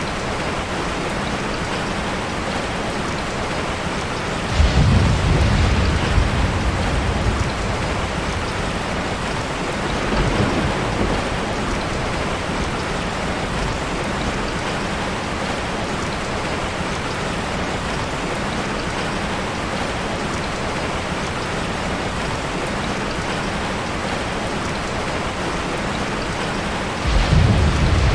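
Steady heavy rain falling, with thunder rumbling about four seconds in, a fainter rumble around ten seconds, and another rumble starting near the end.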